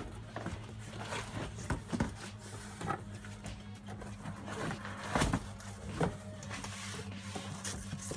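Cardboard box being opened by hand: flaps pulled back and bent, with irregular rustling, scraping and a few knocks as the packing inside is shifted, the loudest a little past the middle.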